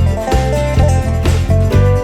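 Upbeat background music in a bluegrass-country style, with plucked acoustic guitar and banjo over a steady bass beat.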